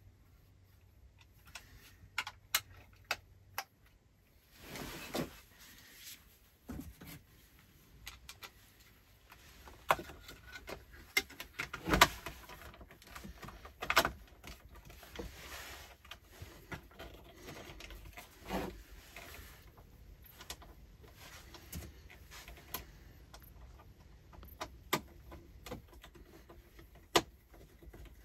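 Hands working on plastic electrical sockets and wiring with a screwdriver: scattered sharp clicks and taps, with a few short rustles.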